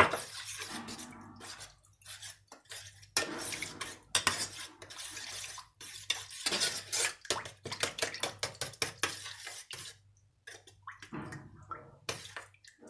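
A spoon scraping and clinking irregularly against a small stainless steel pot while stirring tomato and pepper paste into water to make a sauce. There is a short pause about ten seconds in.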